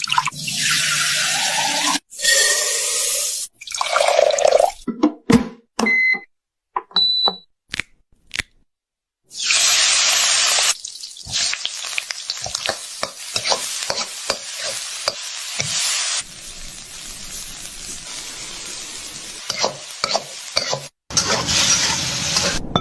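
Kitchen cooking sounds in quickly cut snippets: running water and sizzling, stirring, with clatter and knocks between them and a few short electronic pings.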